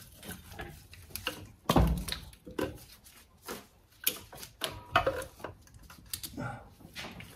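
Irregular clicks, clinks and knocks of hands and a hand tool working among the wiring and metal parts of a car's engine bay, with one louder knock a little under two seconds in.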